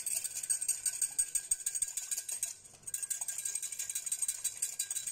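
Hand-pump plunger whisk in a glass jar being worked, its spinning mechanism making a rapid ratcheting clatter, with a brief pause about two and a half seconds in. It is whisking together a salad dressing of olive oil and lemon juice.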